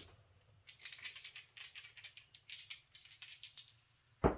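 Casino chips clicking against one another as they are handled and set down on the craps layout: many quick, irregular clicks. A single loud knock comes near the end.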